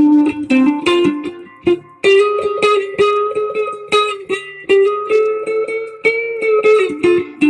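Guitar played through a slight delay effect: a run of plucked single notes, some held and ringing over fresh picks.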